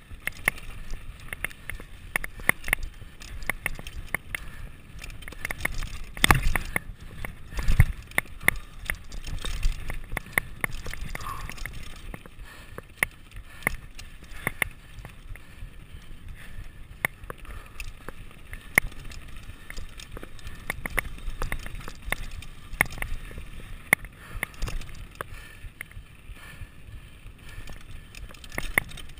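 Mountain bike running fast down a rough dirt trail: a steady tyre rumble with constant rattling and sharp clicks from the bike over bumps. Two harder jolts come about six and eight seconds in.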